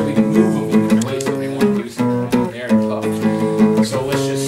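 Background music with an acoustic guitar picking and strumming a steady, rhythmic tune.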